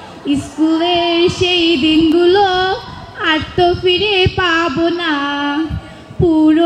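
A young woman singing solo into a handheld microphone, holding long notes with pitch bends and brief pauses for breath.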